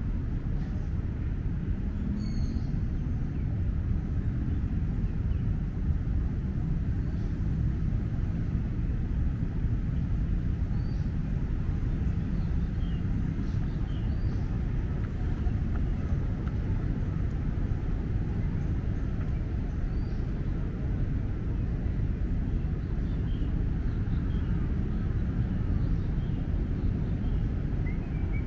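Steady low outdoor rumble with faint, scattered bird chirps.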